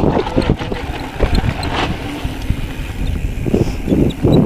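Mountain bike riding over a rough dirt trail: tyres on dirt and roots with the bike rattling in many short knocks, over a steady low rumble of wind on the microphone.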